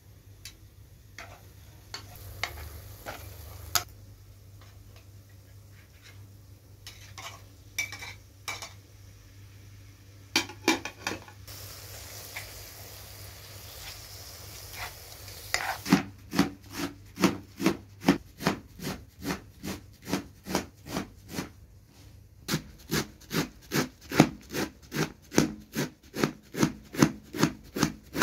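Spatula scraping and stirring in a frying pan as minced meat is mixed into sizzling fried onions. In the second half, a knife chopping a heap of fresh herbs against a metal tray in a steady rhythm of about three strokes a second.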